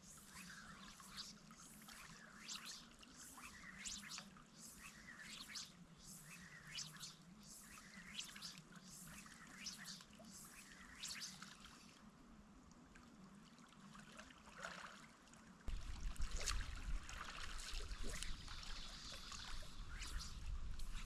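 River water trickling and splashing in quick little spatters. About three-quarters of the way through, a low rumble comes in suddenly and runs on under the water sound.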